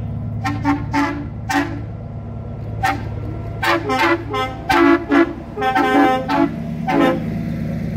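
Truck horns sounding about a dozen short toots, in quick clusters and loudest about halfway through, over the steady low drone of diesel prime movers rolling slowly past.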